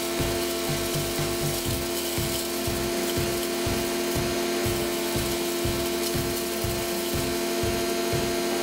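Wood chipper running steadily with a constant mechanical hum, as it chews through wood.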